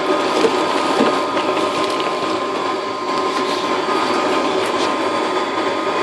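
Homemade dust collector's blower motor running steadily: an even hum with a whine over a rush of air through the hose, with a few faint ticks.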